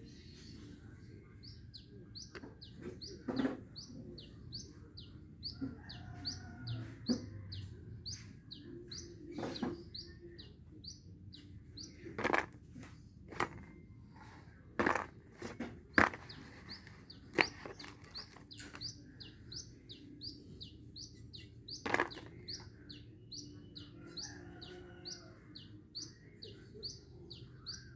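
A small bird chirping over and over, a short high chirp about three times a second, with a few sharp clicks and knocks scattered through, the loudest around the middle.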